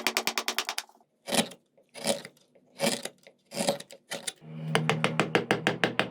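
Background music with a fast, even ticking beat over held low notes. About a second in the beat stops for four separate swishes, evenly spaced. Near the end the ticking beat returns over a new low bass note.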